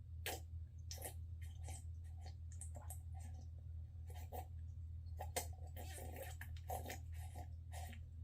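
A person slurping and gulping hot coffee: an irregular run of short wet mouth sounds, sips and swallows, over a steady low hum.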